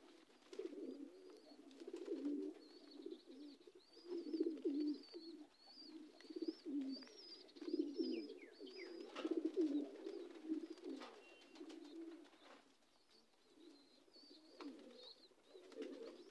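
High flyer pigeons cooing, a string of low rumbling coos repeated again and again, easing off into a short lull a little after the middle before a few more coos near the end.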